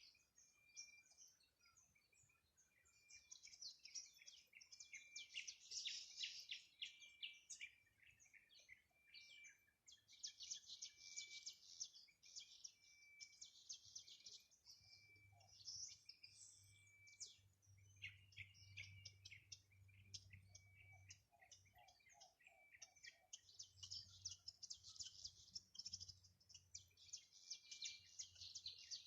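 Several small birds singing faintly, in bursts of rapid high chirps and trills. Through them runs a short steady whistled note repeated about every second and a half, and about two-thirds of the way through comes a brief run of lower, quick notes.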